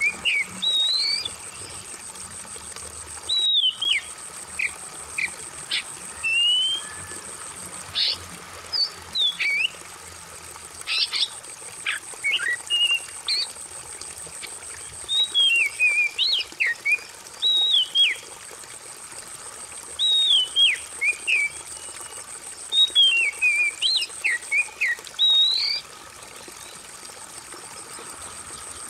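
Oriental magpie-robin (kacer) singing loud, varied whistled phrases that swoop up and down, in bouts with short pauses. Under the song is a faint steady trickle of water and a steady high-pitched tone.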